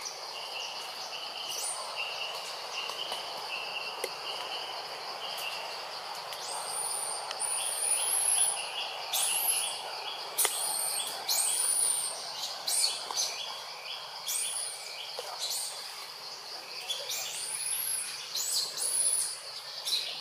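Forest ambience: a steady high insect drone under many short, very high bird chirps that sweep up and down, growing busier from about seven seconds in. In the first few seconds there is a softer run of repeated lower notes.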